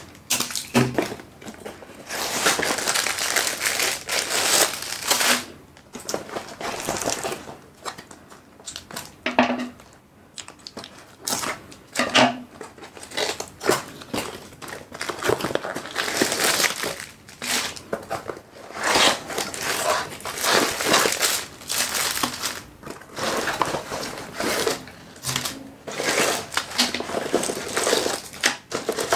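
Cardboard boxes and plastic bags being handled and unpacked: irregular crinkling and rustling, with a few sharper knocks.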